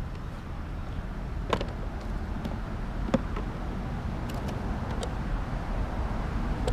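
Steady low rumble with a few faint sharp clicks, the clearest about a second and a half and three seconds in.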